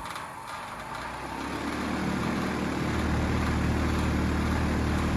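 2021 Carrier Sentry heat pump outdoor unit starting up in cool mode: a low mechanical hum comes in about a second in and builds over the next two seconds to a steady level.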